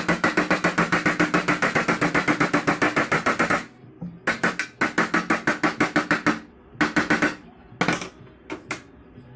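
Rapid hammer tapping on a home-made sheet-steel bladed flywheel, about ten light blows a second with the thin metal ringing under them, typical of knocking weld slag off a freshly welded rim. The tapping stops about three and a half seconds in, then returns in two shorter runs and a few single knocks.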